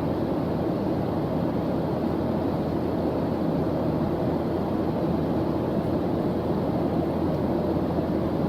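Steady white-noise track: an even, deep rushing that never changes.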